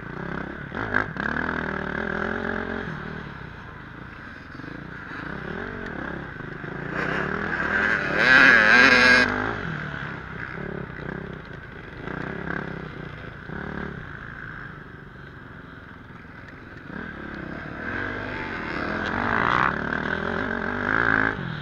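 KTM 450 motocross bike's single-cylinder four-stroke engine, heard from on the bike, revving up and down as it is ridden hard over rough ground. The loudest, highest rev comes about eight seconds in, with another climb near the end.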